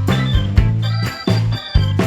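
Upbeat instrumental background music with a steady drum beat over held bass notes.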